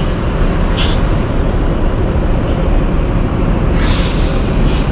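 Large coach bus's diesel engine running as it pulls in and stops, with several short bursts of compressed-air hiss from its air brakes, the longest near the end.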